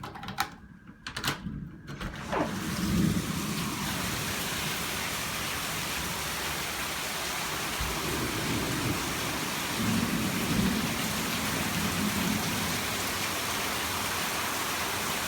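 Heavy rain pouring steadily during a thunderstorm, with low rumbles of thunder about three seconds in and again around ten seconds in. A few sharp clicks come just before the rain sound swells up.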